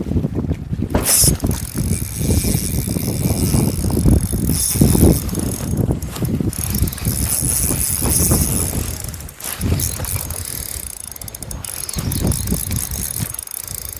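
Spinning reel being cranked to retrieve a lure, its gears whirring steadily, with a short break about two-thirds of the way through. Wind buffets the microphone throughout.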